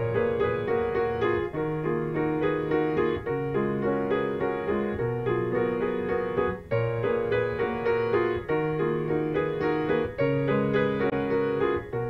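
Solo piano music playing quick repeated notes over bass notes that change every second or two.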